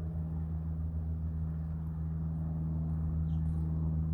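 A steady, low machine hum that holds one pitch throughout, with no change in speed or loudness.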